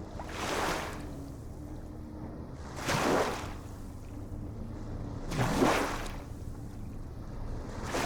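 Ocean waves washing in, one surge about every two and a half seconds, with a faint steady low hum underneath.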